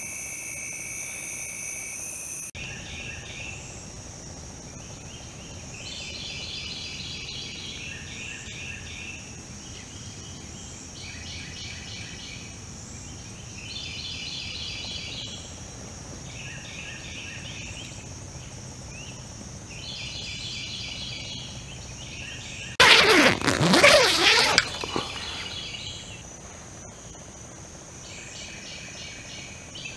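Woodland wildlife chorus. Night insects chirr steadily until a change about two and a half seconds in. After that a high steady insect drone carries on under repeated short, rapid trills every couple of seconds. A loud harsh call or rasping burst of about two seconds stands out near the end.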